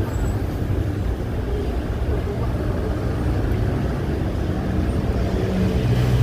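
Steady engine and road noise of traffic, heard from a vehicle moving along the road, with a low engine hum underneath. A deeper engine drone strengthens near the end.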